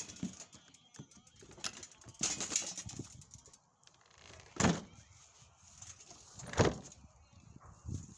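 Sharp knocks and bumps with some rattling as a bicycle with a wire front basket is handled at a door. There are several separate knocks, the loudest two about four and a half and six and a half seconds in.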